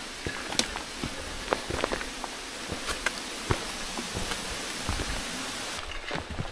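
Footsteps of Workman Azim mid-cut trek shoes on a rocky, gravelly mountain trail: irregular scuffs and clicks of the soles on stone, about two a second.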